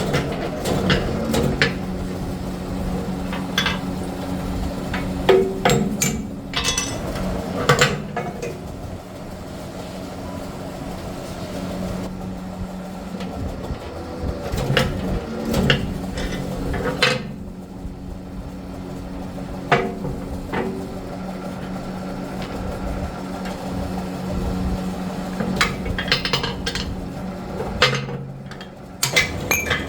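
Factory machine humming steadily, with irregular metallic clanks and knocks of metal parts being struck or handled.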